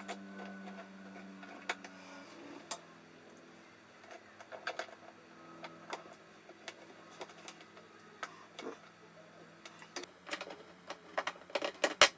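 Small metal hinge hardware being handled and fitted: scattered light clicks and taps, coming thicker near the end, over a faint steady hum.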